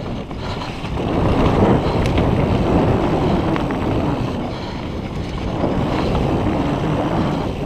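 Wind rushing over the camera microphone as a mountain bike rides the trail, swelling louder about a second in.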